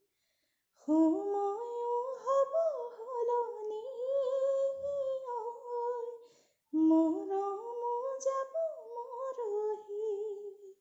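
A woman singing a slow melody unaccompanied, in two long phrases with held, gliding notes and a brief break just over six seconds in.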